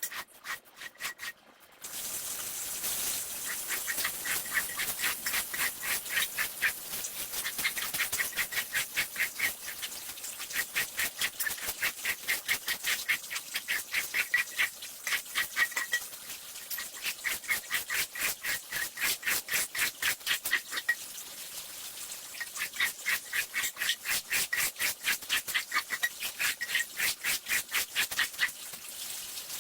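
Fast, rhythmic scraping strokes of a cleaning tool working a wet shag rug, about five strokes a second, with a squeaky tone in stretches. The strokes pick up in earnest about two seconds in.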